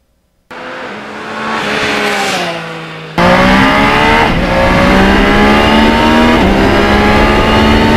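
Motorcycle engine accelerating through the gears, heard from the rider's seat. The revs climb steadily, drop at an upshift a little after four seconds in, then climb again with another shift about two seconds later. Before this louder run starts abruptly, a quieter engine sound falls in pitch.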